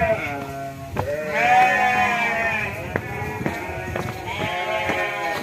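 Livestock bleating: several long, wavering bleats that overlap, three main calls in a few seconds, with footfalls of a runner ticking through them.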